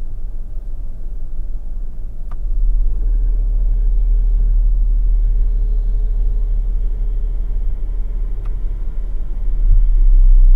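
Deep booming engine rumble (roughly 32 Hz) inside the cabin of a 2026 Chrysler Grand Caravan idling at a stop, which the owner takes for a defect. About two seconds in, a click is followed by the boom growing louder as the air conditioning comes on. Near the end, a second click and a further rise come as the air conditioning is switched off and the idle drops.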